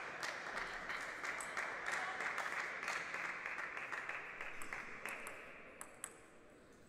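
A small crowd in a hall applauding between table tennis rallies. The clapping dies away about five seconds in, and two sharp clicks follow near the end.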